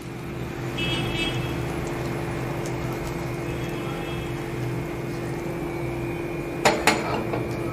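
A steady hum with an even hiss, while the tempering of mustard seeds, urad dal and curry leaves in sesame oil is added to tomato chutney; two sharp knocks of kitchenware close together near the end.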